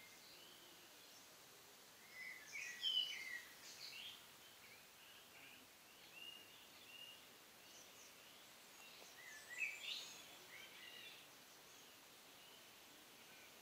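Quiet outdoor ambience with a small bird twittering in two short bursts of chirps, a couple of seconds in and again about two-thirds of the way through.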